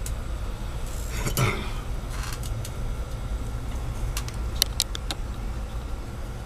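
Small metal tools being handled on a workbench: a brief rustle about a second and a half in, then a few light metallic clicks about five seconds in, over a steady low hum.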